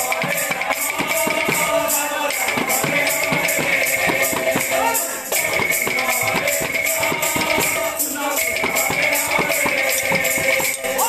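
Kirtan percussion: several double-headed barrel drums beaten together in a fast, driving rhythm, with metallic hand cymbals ringing over them. The playing drops briefly about five seconds in, then picks up again.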